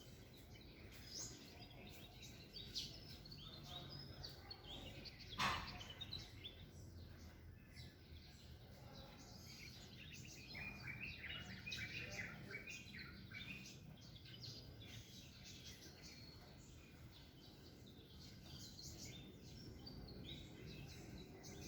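Faint chirps and calls of small birds at a tree, busiest in the middle, with one sharp tap about five seconds in.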